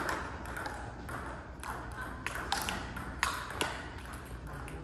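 Celluloid-style table tennis ball striking rubber paddles and the table top in a rally: about eight sharp, irregular clicks.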